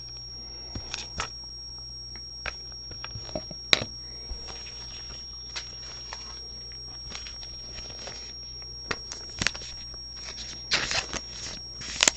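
Trading cards and card packaging being handled: scattered light clicks, taps and rustles, busier near the end. A faint steady high-pitched electrical whine and low hum run underneath.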